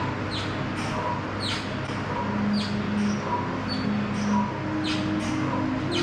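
Mini stepper squeaking with each step: short, high, falling squeaks repeating about once or twice a second.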